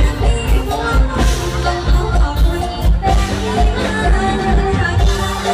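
Live mor lam song played loud through a stage PA: a woman singing over an amplified band with a steady bass drum beat, about two beats a second.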